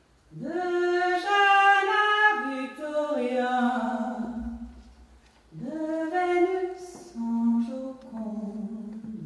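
A woman singing solo and unaccompanied: two slow phrases of long-held notes, each starting with an upward scoop into the first note.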